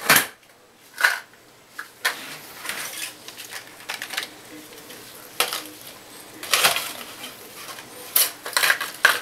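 Irregular clicks, taps and rattles of small hardware being handled while picking out a replacement faucet washer of the right size, with a run of sharper clicks near the end.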